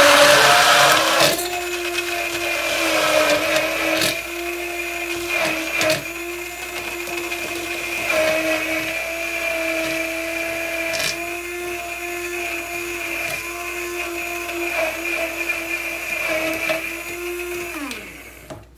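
Hand-held immersion blender running steadily while whisking raw eggs in a tall glass beaker, louder and rougher for the first second or so. Near the end the motor winds down with a falling pitch and stops.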